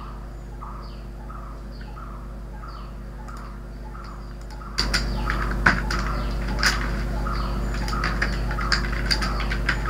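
A small bird chirping over and over, a short call with a falling high note about twice a second, over a low steady hum. About five seconds in, the background gets louder and sharp computer-keyboard clicks join the chirping.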